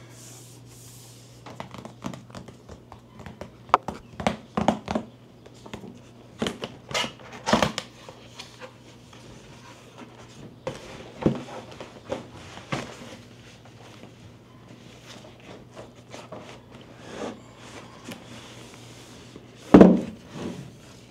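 Hand-handling noises from unpacking: scattered clicks, knocks and rustles, with a heavier thump near the end, over a steady low hum.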